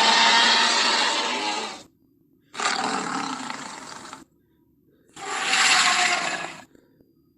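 Film sound-effect Tyrannosaurus rex roars, played one after another with silent gaps between them. A roar already under way ends about two seconds in, followed by two more roars of about a second and a half each.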